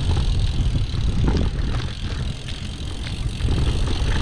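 Bicycle rolling along a gravel-and-dirt track: a steady low rumble of tyres and wind on the microphone, easing a little about two seconds in.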